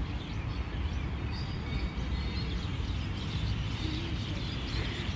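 Steady outdoor background noise: a low rumble with a hiss over it, and a few faint bird chirps.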